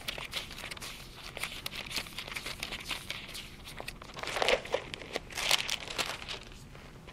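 Thin Bible pages being leafed through: a run of soft, crisp paper rustles, loudest at about four and a half and five and a half seconds in.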